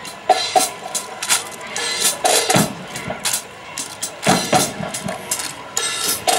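Drums beating a cadence for a rifle drill team, with a few deep bass-drum strikes among many sharp clacks and knocks of hands and rifles being slapped and handled in time.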